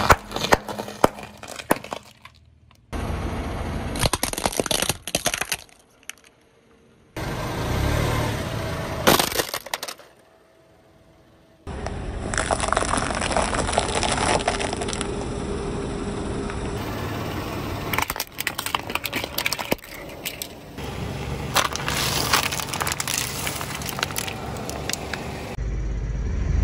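A car tyre rolling over and crushing objects, such as dry spaghetti snapping under the tread, with crackling and breaking. It comes in several short bursts, cut off abruptly, with two brief quiet gaps.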